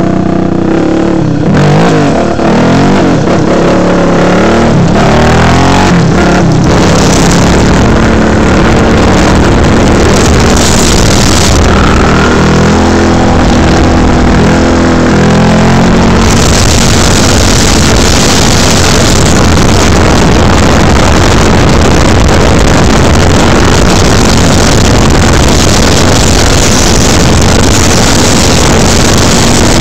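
Yamaha Raptor 700 ATV's single-cylinder four-stroke engine revving and pulling hard as the quad is lifted onto its rear wheels and held in a wheelie, the pitch rising and falling with the throttle. About halfway through, a steady loud rush of noise covers the engine.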